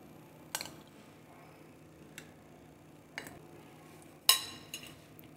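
Spoon clinking against a serving bowl and glasses while mango pieces are spooned onto the drinks: a few light clicks spread apart, then a louder ringing clink about four seconds in.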